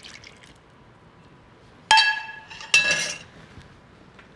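A metal ladle clinks twice against cookware as the cream mixture is ladled into a glass bowl of puréed potatoes, each strike ringing briefly.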